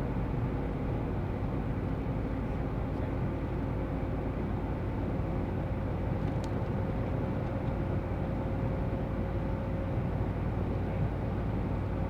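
Steady engine and road noise inside the cabin of a GAZ Sobol van driving along the highway, with a constant faint whine running through it.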